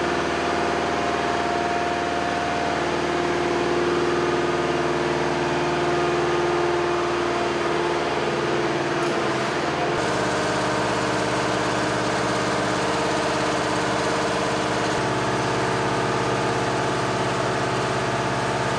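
MHU-83 munitions lift truck's engine idling steadily. Its pitch and mix of tones change abruptly about ten seconds in, then hold steady again.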